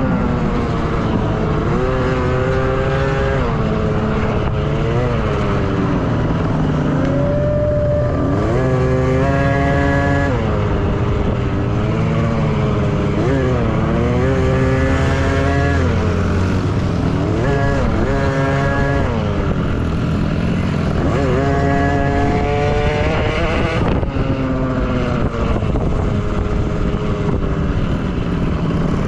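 Small two-stroke KTM 50 dirt bike engines revving, their pitch climbing and dropping again and again as the throttle is worked, with more than one bike heard at once at times over a steady low rumble.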